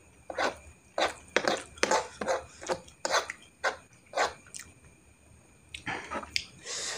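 A person chewing a mouthful of fried instant noodles close to the microphone: a run of short mouth sounds, two or three a second, with a brief lull about five seconds in before a few more.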